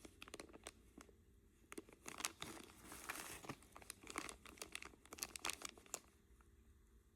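Plastic bags crinkling faintly as jewelry is handled, with scattered small rustles and clicks.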